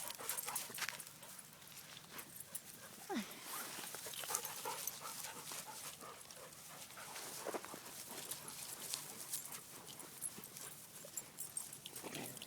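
Dogs panting and moving about, with many small scattered clicks and rustles and a short falling whine about three seconds in.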